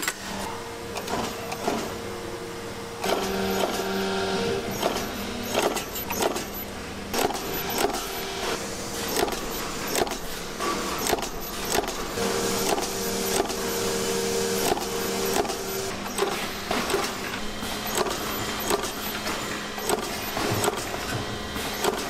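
Factory machinery running in a power-strip plant: a steady machine hum that drops out and comes back, with frequent irregular clicks and clacks.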